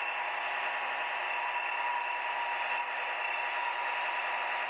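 Roco H0 model of a DB class 628 diesel railcar running slowly on track, its sound decoder playing a steady diesel running sound through the model's small speaker, thin with no deep bass, mixed with the model's own motor and wheel noise.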